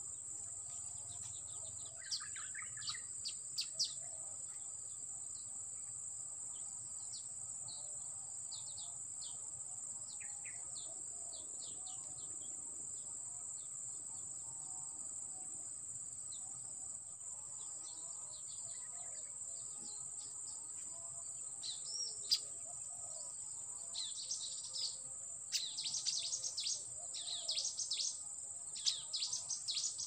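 A steady high-pitched insect drone with small birds chirping in short calls, sparse at first and coming thick and fast over the last several seconds.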